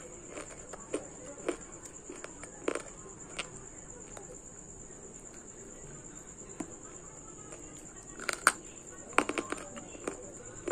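Crunching bites of dry multani mitti (Fuller's earth clay) being chewed close to the microphone: scattered sharp crunches in the first few seconds, then a quick cluster of them near the end. A steady high-pitched whine runs underneath.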